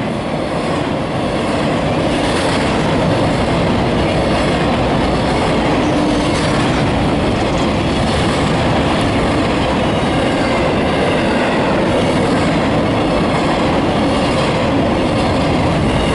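Empty double-stack container cars of a CSX freight train rolling past close by: a steady, loud rumble of steel wheels on rail.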